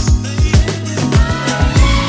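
Background music with a steady beat: a strong kick about every half second, with deep bass notes that slide down in pitch.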